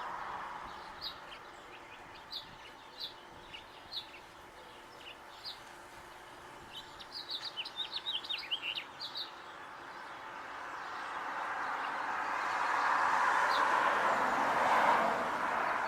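Small songbird chirping: short high chirps every second or so, then a quick run of twittering about seven to nine seconds in. Underneath is a steady rushing hiss that fades early on and swells again over the last few seconds.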